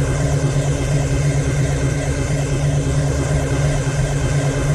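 Science-fiction thermal lance sound effect: a steady low hum with a rough, irregular texture over it.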